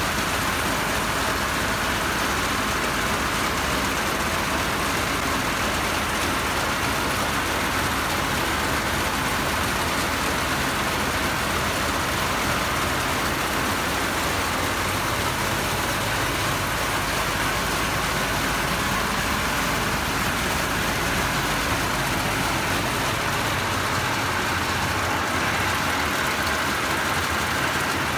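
Rice threshing machine running steadily, a constant mechanical drone as rice stalks are fed into its spinning drum.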